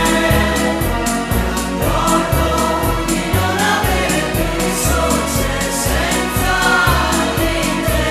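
Music with singing voices, like a choir, over a steady beat.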